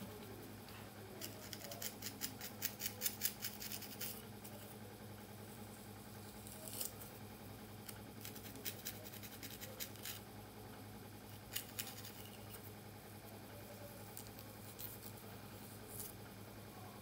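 Hair crackling and scratching up close as fingers and a slender pointed pick loosen and part cornrowed hair. There is a quick run of crisp scratches from about one to four seconds in, then scattered single ones. A low steady hum runs underneath.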